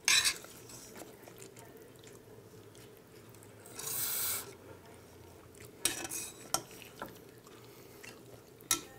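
Noodles slurped from a pan of jjapagetti, a short slurp at the start and a longer one about four seconds in, with metal chopsticks clicking and scraping against the metal pan a few times near the end.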